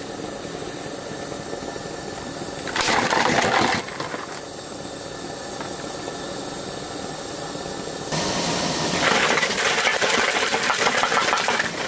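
A vehicle engine running steadily. A louder harsh noise cuts in for about a second around three seconds in, and again from about eight seconds in.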